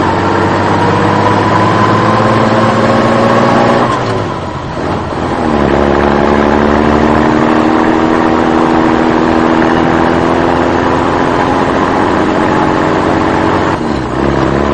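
Engine running with its pitch climbing slowly, like revving up under load. It drops away about four seconds in, picks up again about a second and a half later and climbs slowly once more.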